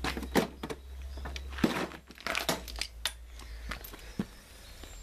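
Handling noise: scattered sharp clicks and short crinkly rustles, bunched near the start and around the middle.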